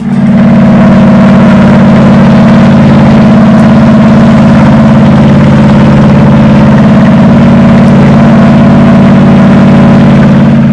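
Parasail tow boat's engine running, very loud and steady.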